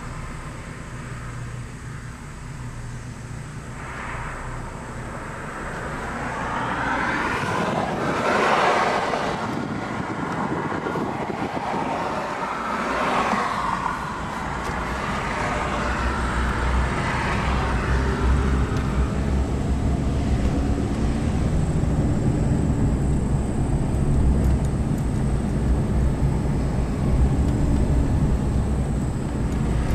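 Vehicles passing on a road: several swell up and fade away, the loudest about eight seconds in and another around thirteen seconds. After that comes a steady low rumble.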